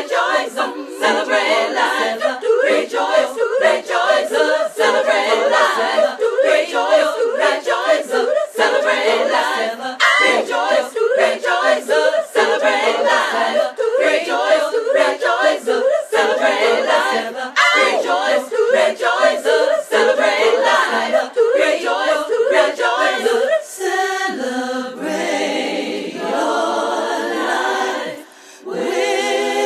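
An a cappella vocal group sings short, rhythmic vocal syllables in harmony, with no instruments. About six seconds from the end it moves into long held chords, broken briefly near the end.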